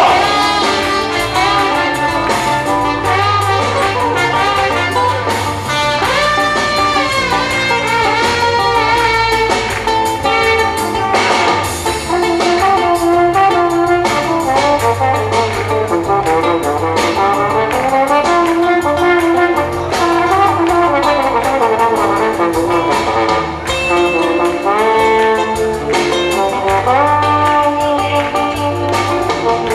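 Slide trombone playing a lively melody live, with several sweeping slides up and down between notes, over band accompaniment with a bass line and drums.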